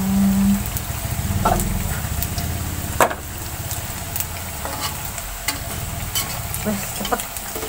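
Hot oil sizzling steadily as pieces of soy food fry in a steel wok on a gas stove, with short clicks of a metal spatula against the pan now and then; the sharpest comes about three seconds in.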